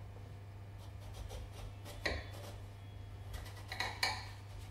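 Quiet kitchen work: a knife cutting into a large marrow-sized courgette on a chopping board, with faint scrapes and knocks about two seconds in and again near the end, over a steady low hum.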